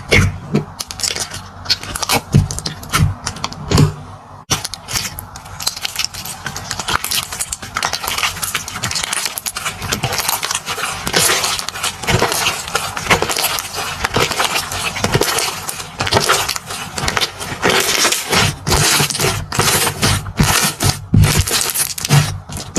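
Slime being squeezed and pulled by hand, making a dense run of small crackles and pops with a brief lull about four seconds in.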